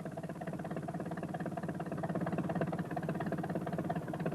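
Small van engine running steadily with a fast, even putter, getting a little louder about halfway through.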